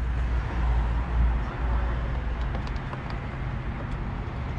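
Low, steady rumble of a motor vehicle, loudest in the first second and a half and then easing off, with a few faint light clicks later on.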